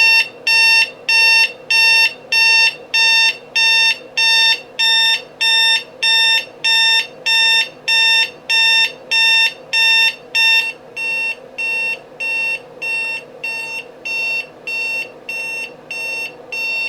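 Travelwey LED alarm clock's alarm sounding on its high-volume setting: a loud, jarring run of evenly spaced high-pitched beeps, a little under two a second, turning slightly quieter after about eleven seconds and stopping at the end.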